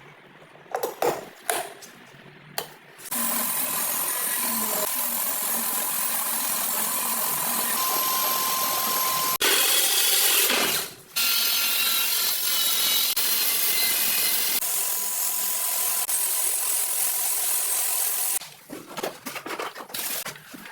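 Power tool running in long steady stretches, with a louder stretch about halfway through, and scattered knocks and handling clatter in the first few seconds and near the end.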